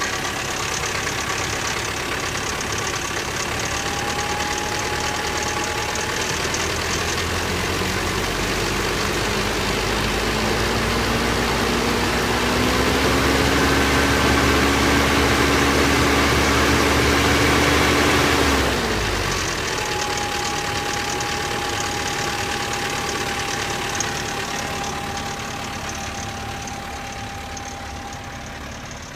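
1985 Toyota 22RE four-cylinder engine running after a cold start, with a noise the owner puts down to a slack timing chain. About ten seconds in it speeds up and holds a higher speed, then drops sharply back to idle about two-thirds of the way through.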